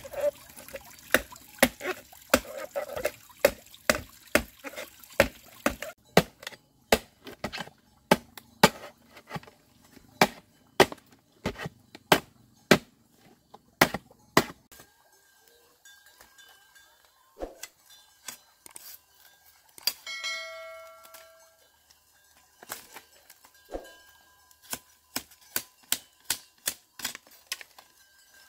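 A series of sharp knocks or taps, irregular and about one or two a second, that thin out in the middle and pick up again near the end. About twenty seconds in comes a brief ringing tone.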